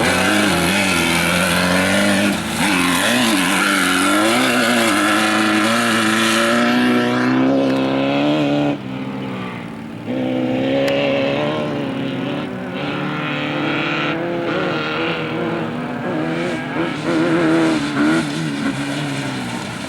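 Off-road race vehicle engines revving hard, the pitch climbing and falling again and again as they accelerate and pass. It drops briefly about nine seconds in, then picks up again.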